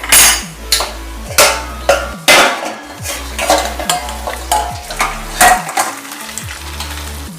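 A spoon stirring and scraping boiled macaroni in a pot of water, in repeated short strokes.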